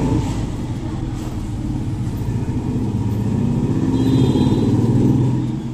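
A motor vehicle's engine running, growing louder until near the end and then dropping away.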